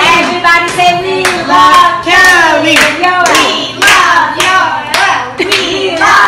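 Hand claps keeping time with voices singing a song, clapping along several times a second.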